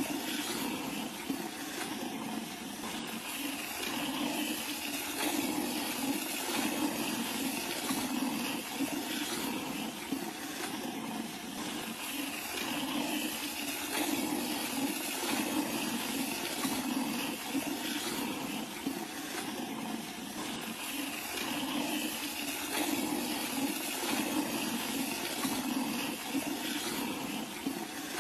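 Hand milking a cow: milk squirting from the teats in thin streams into a plastic bucket, over a steady hiss.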